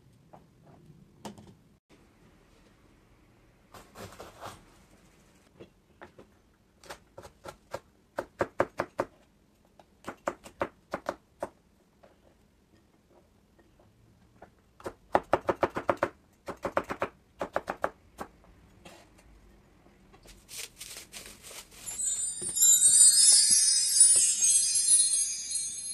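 Kitchen knife chopping a green pepper on a plastic cutting board, in several quick runs of strokes with pauses between. Near the end a louder burst of high, chime-like music comes in.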